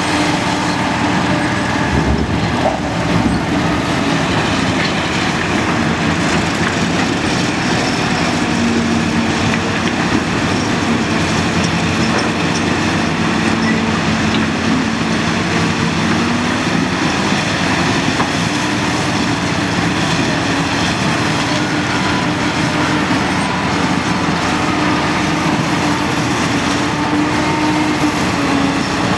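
Caterpillar 992G wheel loader's large V8 diesel engine working hard through a loading cycle, its note dropping for several seconds midway while the bucket is in the rock pile, then rising again. A low thump about two seconds in.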